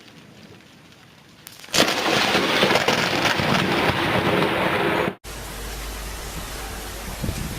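Rain hissing softly, then about two seconds in a sudden loud thunderclap from a close lightning strike that rumbles on for about three seconds. It cuts off abruptly into steady rain and wind noise with a low rumble.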